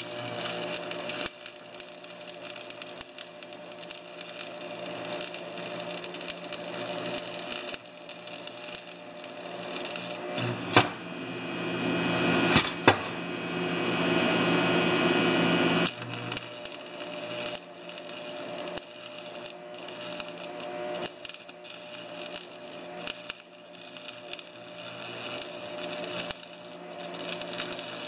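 Stick welding arc crackling and sizzling as a bead is run on the steel auger of a John Deere TRS 24 snowblower. The arc breaks off briefly about ten seconds in, with a couple of sharp clicks, then strikes again and keeps crackling.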